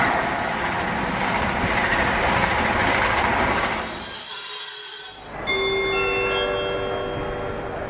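Train sound effect under an animated intro: a loud rush of a train passing for about four seconds, then, after a short dip, several steady high tones sounding together and slowly fading.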